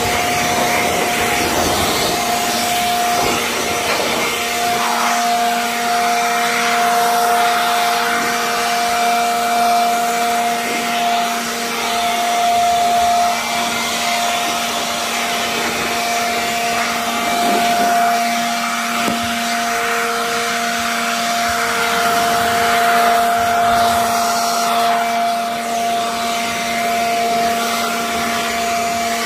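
Worx electric leaf blower running steadily at full speed, a high motor whine over a loud rush of air, blowing water off a car's wheel.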